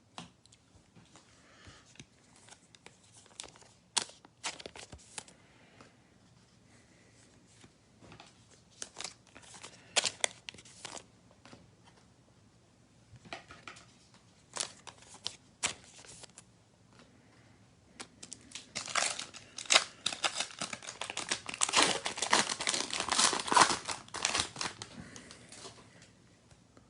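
Trading cards being handled with occasional light clicks and shuffles. Then, from about 18 seconds in, a foil card pack is torn open and crinkled for several seconds.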